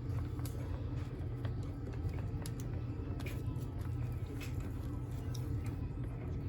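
Light, irregular clicks and scrapes of hands working stiff plastic tabs and the shell of a toy parrot, over a steady low background hum.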